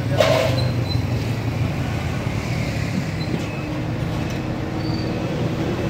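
Steady low engine rumble, with a brief louder noise just after the start.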